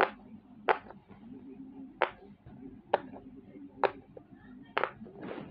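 Silicone pop-it fidget toy, its bubbles pressed in one at a time with a finger: sharp pops, about seven, roughly one a second.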